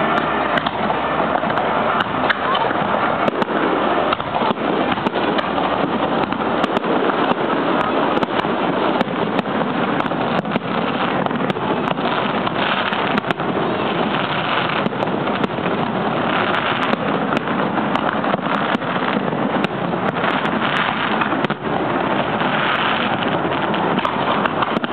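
Fireworks going off in quick succession, many sharp bangs and crackles over a steady dense rumble of noise, with voices in the crowd underneath.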